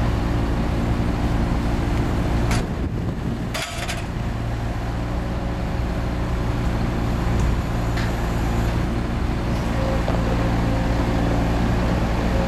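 Bobcat 753 skid-steer loader's diesel engine running steadily. Its sound dips briefly, with a few sharp clicks, about three seconds in.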